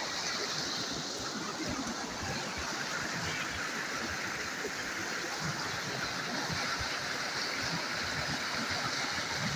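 A clear, shallow river running over gravel and stones, flowing water heard as a steady, even sound.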